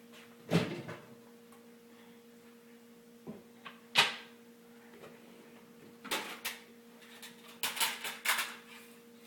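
Scattered knocks and clicks: a loud knock about half a second in, a sharp click at about four seconds, and a quick run of clicks and knocks in the last three seconds, over a faint steady hum.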